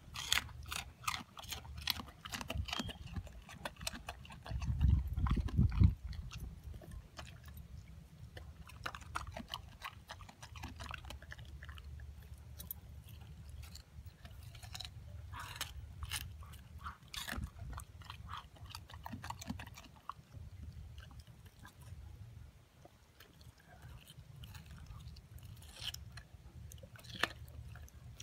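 Siberian husky chewing watermelon rind: irregular wet crunches and clicks of teeth on the rind. A louder low rumble comes about five seconds in.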